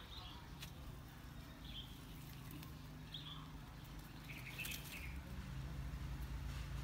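A few short, high bird chirps, over a low steady rumble with a few sharp clicks.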